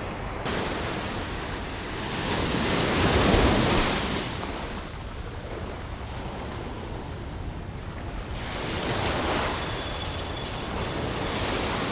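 Ocean surf washing up onto a sandy beach, swelling twice as waves break and run up the shore, with wind rumbling on the microphone.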